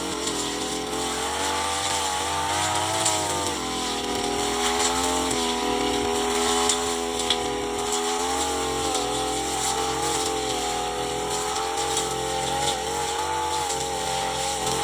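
Brush cutter engine running under load, its pitch rising and dipping every few seconds as it cuts, with scattered sharp ticks.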